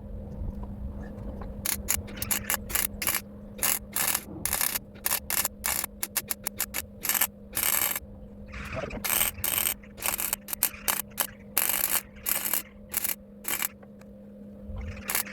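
Gas-shielded MIG welder laying short tack welds one after another on a sheet-steel patch panel. Each weld is a brief crackling burst, about one or two a second at uneven spacing, over a steady low hum.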